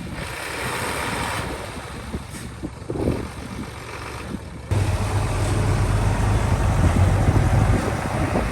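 Diesel engine of heavy construction machinery running. About halfway through, the sound jumps suddenly louder, with a strong low hum.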